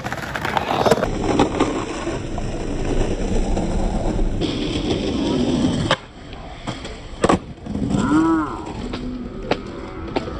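Skateboard wheels rolling over brick pavers with a continuous rough rumble for the first six seconds. After that come several sharp clacks of the board popping and landing on stone ledges and pavement, the loudest about seven seconds in.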